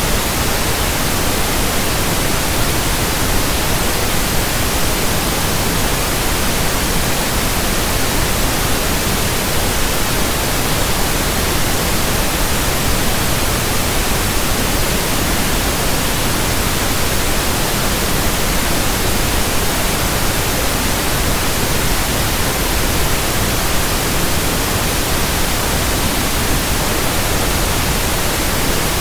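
Steady synthetic pink noise: an even, unchanging hiss spread across low and high pitches.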